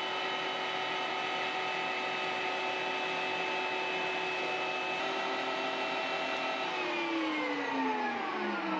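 Electric meat grinder running steadily with a sausage-stuffing tube, pushing seasoned pork and lemongrass filling into a casing. About two-thirds of the way in, its whine starts to fall steadily in pitch as the motor spins down.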